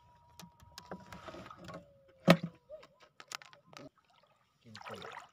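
Shallow seawater splashing and sloshing as someone wades through it, in two short bursts, with scattered small clicks. One sharp knock just after two seconds in is the loudest sound.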